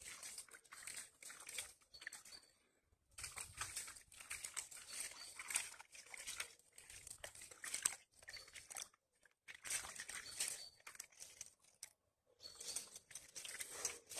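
Rustling and crunching of footsteps through leaf litter and undergrowth, in irregular stretches broken by a few short pauses.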